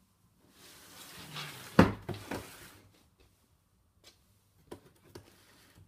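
Handling noise: a rustling scrape for about two seconds, with a sharp knock in the middle and two lighter knocks just after it, then a few faint clicks.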